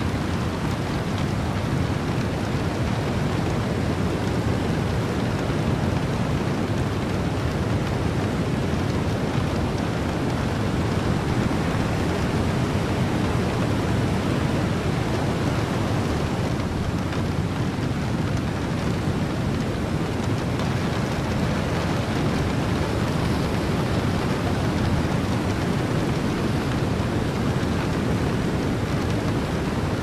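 Ocean wind and heavy rain: a steady, unbroken rushing noise with a deep low rumble beneath it.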